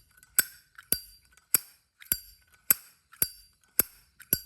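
Solid brass Zippo lighter's lid flicked open and snapped shut over and over, a sharp metallic clink about twice a second.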